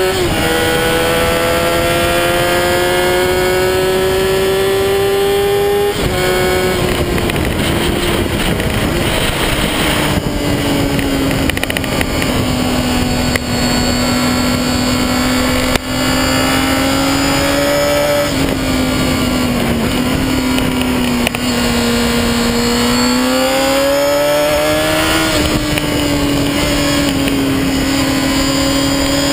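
Honda CBR sport motorcycle engine under way. It pulls with rising pitch for the first few seconds and drops at a gear change about six seconds in. It then runs at a steadier pitch that swells with the throttle again later on, heard close from a camera mounted on the front mudguard.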